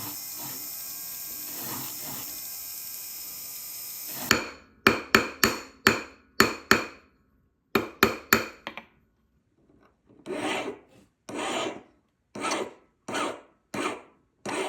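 A hand file rasping on a metal ring in slow, even strokes, about one a second, in the second half. Before that, a steady hiss for about four seconds, then a quick run of sharp taps.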